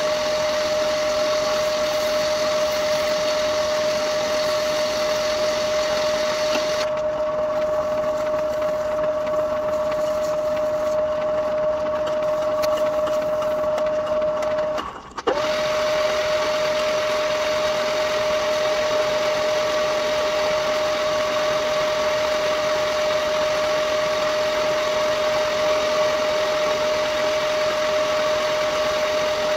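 Old metal lathe running steadily with a constant whine, turning a bronze workpiece; the sound breaks off briefly about halfway, then resumes unchanged.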